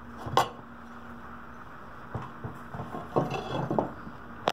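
Tinted glass sample panels clinking and knocking lightly as they are handled, in a few scattered taps and one sharp click at the end, over a faint steady hum.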